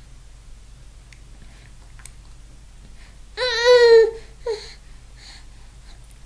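A baby vocalizing: one loud, drawn-out call a little past halfway, then a short second sound about half a second later.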